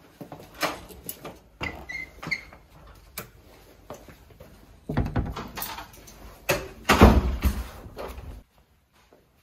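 Knocks, rustles and footsteps of coming in through a flat's front door and stepping out of shoes on the doormat, with a louder thump about seven seconds in. The sound cuts off suddenly near the end.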